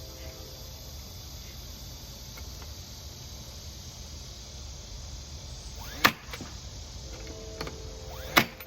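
Two sharp, loud knocks of a tool striking wood, about six and eight and a half seconds in, over a steady background hiss and hum.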